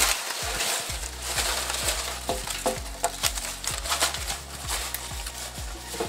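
Loose paper slips rustling and crinkling as a hand rummages through a bucket of them, with many small clicks and crackles.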